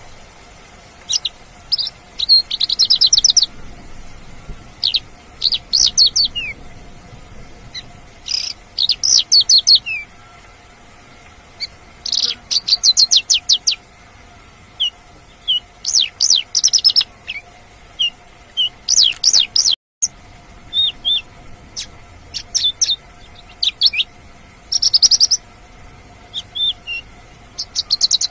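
Mongolian lark singing: phrases of fast rattling trills mixed with short, sharp whistled notes and quick downslurs, each phrase a second or two long with short pauses between.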